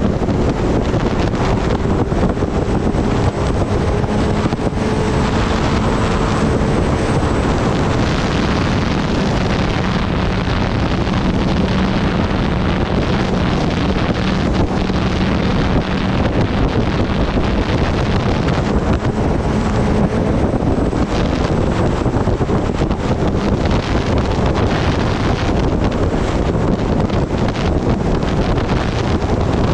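Strong wind rushing over the microphone of a motorcycle riding at road speed, with the bike's engine a faint steady drone underneath.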